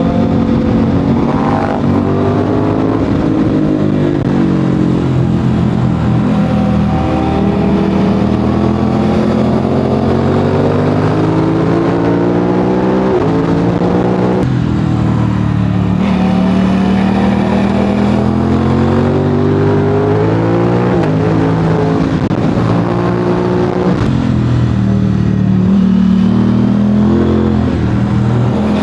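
Aprilia RS 660 parallel-twin engine through an SC-Project SC1-R exhaust, loud throughout, its revs climbing and falling again and again as the bike accelerates and slows through the bends, with sudden steps in pitch at the gear changes.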